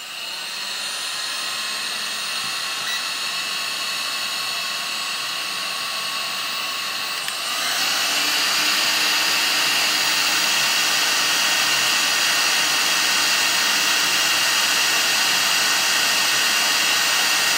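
Black & Decker heat gun running, the steady blowing noise of its fan, which gets louder about seven and a half seconds in.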